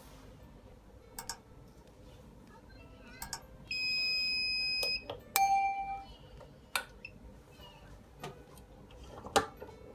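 Digital controller of a mug heat press beeping as its buttons are pressed: a short high beep, then one steady beep of about a second in the middle. Right after it comes a ringing ding that fades, and several sharp clicks follow.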